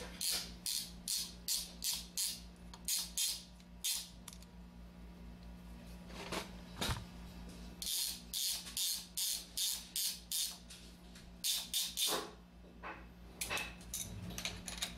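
Small metal roller chain and sprocket on a Columbia automatic taper clinking in runs of short metallic clicks, about three a second, as the sprocket is turned by hand to thread it onto the top wheel rod. A steady low hum runs underneath.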